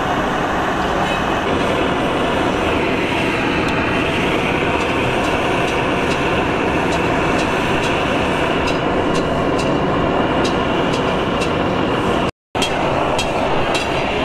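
Hose-fed gas blowtorch burning steadily with a constant rushing hiss as its flame plays on a motorcycle brake shoe. From about halfway there are faint regular ticks, about two a second, and the sound cuts out for a moment near the end.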